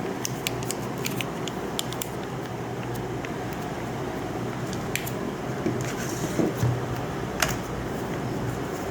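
Smartphone and its packaging being handled during unboxing: scattered small clicks, taps and rustles, a few louder ones in the second half, over a steady low hum.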